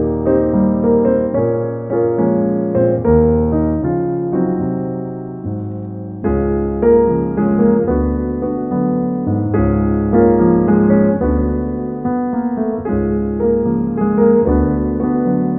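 Background piano music: a slow piece of struck chords and melody notes, each ringing and fading before the next.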